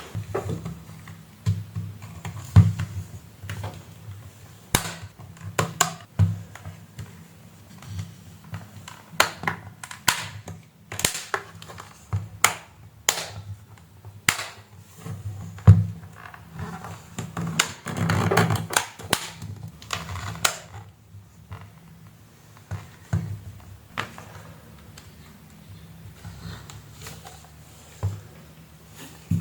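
Scattered clicks, taps and light knocks from handling the tablet and plugging in its USB-C charging cable, over a steady low hum.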